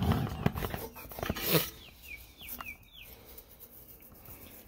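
Stiff plastic brush scrubbing caked dirt off a Poulan push mower's engine, scratchy strokes for about the first second and a half. Then a bird chirps four short falling notes.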